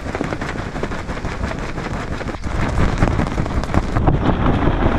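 Wind blowing across the microphone: a steady rumbling rush with a dense crackle running through it.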